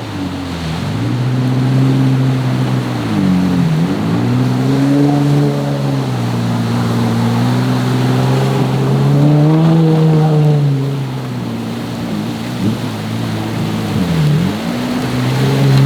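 Jeep Wrangler engine running under changing throttle, its pitch dropping and climbing back about five times as the revs fall and rise, over a steady rushing noise.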